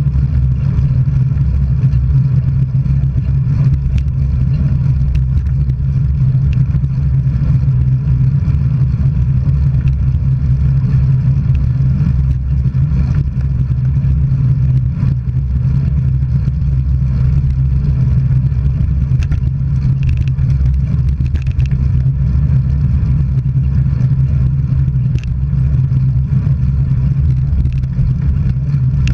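Steady low rumble of travel along a road, wind and rolling noise, with a few faint ticks and clicks.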